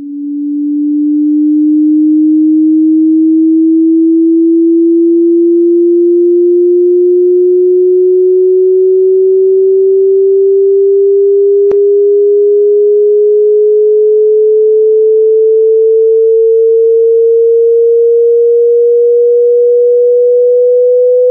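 A single sustained pure tone, slowly and steadily rising in pitch, with a slow regular wobble in its level; a faint click about halfway through.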